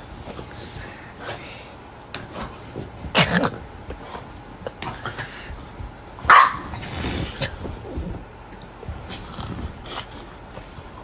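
A small dog barking: two short, loud barks about three seconds and about six seconds in, with softer, scattered noises between.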